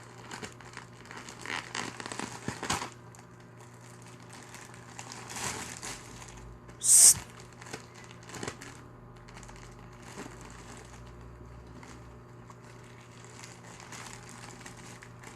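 Intermittent rustling and crinkling with scattered small clicks over a steady low hum, and one short, sharp, hissing burst about seven seconds in.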